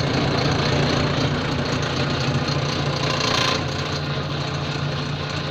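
Homemade bench drill press running with a steady motor hum. Around three seconds in there is a brief brighter hiss, after which it runs a little quieter.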